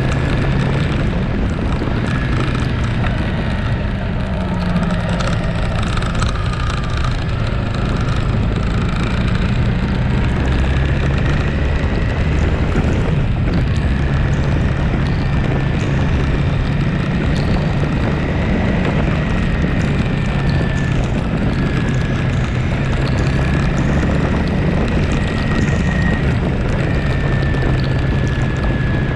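Motorcycle engine running steadily at cruising speed on a wet road, under a constant rush of wind and road noise. A thin high whine drifts slightly up and down in pitch.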